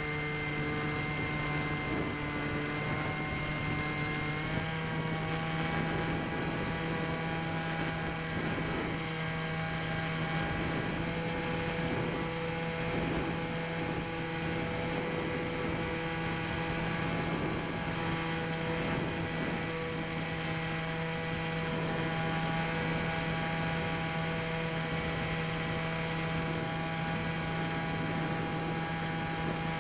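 Bixler RC plane's electric motor and propeller whining steadily in flight, over a rush of wind on the onboard microphone. The pitch steps up about four and a half seconds in as the throttle is raised, then holds.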